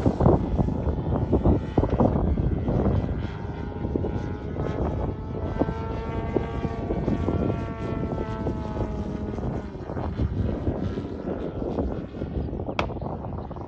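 Petrol engine of a large RC aerobatic plane, a GP123 with tuned exhausts, buzzing in flight with its propeller. Its pitch rises and falls as it manoeuvres. A single sharp click near the end.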